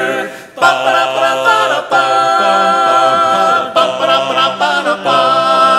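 Male barbershop quartet singing a wordless a cappella interlude in close harmony, long held chords after a brief break about half a second in, with two singers imitating trumpets by voice.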